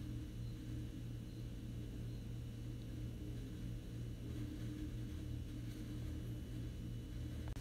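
Domestic sewing machine running steadily, stitching a three-step zigzag through lace and stretch elastic: a steady low motor hum.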